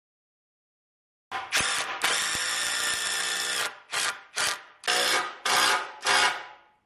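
Cordless power tools fastening ash 2x4 framing. Starting about a second in, a drill bores a pilot hole in a steady run of about two and a half seconds. An impact driver then drives a screw in five short trigger bursts.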